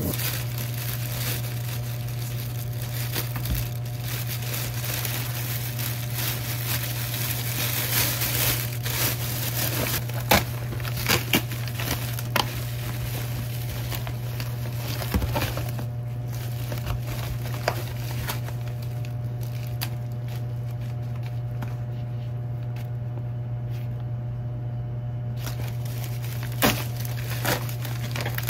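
Crinkling and rustling with scattered sharp clicks and knocks, typical of kitchen prep such as packaging being handled, over a steady low hum. The crinkling is densest in roughly the first half and thins out later, leaving mostly the hum and occasional clicks.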